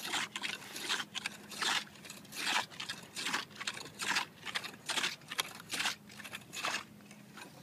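An ice chisel (spud bar) chopping into lake ice three to five inches thick, cutting out a hole: a steady run of sharp, crunchy strikes, one to two a second, that stop near the end.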